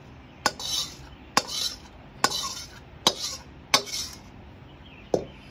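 A spatula scraping out a black kadhai, which is tipped over a steel plate to empty the sticky cooked date jaggery. There are five strokes about a second apart, each starting with a sharp clank and trailing into a scrape, then one last knock near the end.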